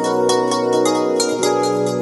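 Background music: a quick run of plucked notes over held chords, with a change of chord about one and a half seconds in.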